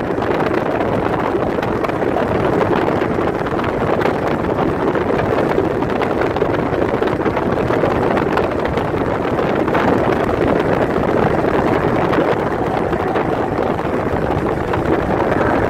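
Steady rush of wind and road noise from a car travelling at highway speed, with wind blowing on the microphone.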